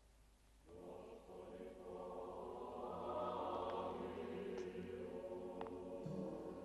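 A choir singing long, held chords, coming in about a second in and swelling, loud enough that the listeners cover their ears just afterward.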